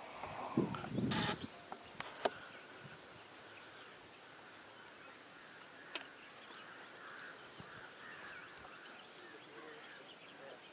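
Outdoor ambience dominated by a steady, high-pitched insect drone, with scattered short bird chirps. About a second in there is a brief loud rustle or knock, and there are sharp single clicks near two and six seconds.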